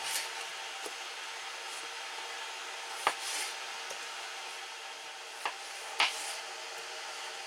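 Kitchen knife cutting on a plastic cutting board: five sharp, scattered knocks of the blade hitting the board, two of them close together near the end, over a faint steady hiss.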